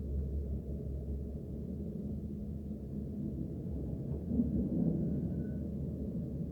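Dubai Tram running, a steady low rumble heard from inside the car, with a faint high squeal briefly about five seconds in.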